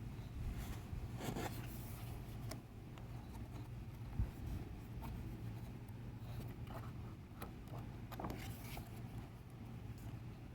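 Pages of a photobook being turned and handled: several short paper rustles and slides, with a soft knock about four seconds in, over a steady low hum.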